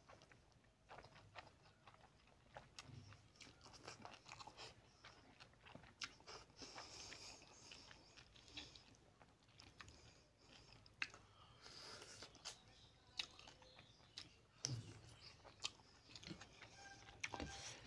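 Close-up mouth sounds of a person chewing a mouthful of curried tilapia fish and rice: a string of short, sharp clicks and smacks, with fingers working the food.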